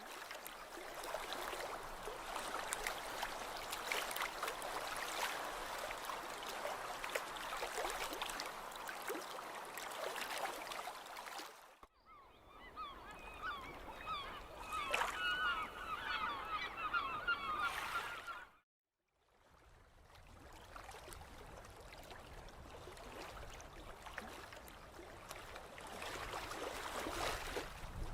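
A flock of birds calling in quick, repeated calls for about six seconds, set between two stretches of steady rushing noise that cut in and out abruptly.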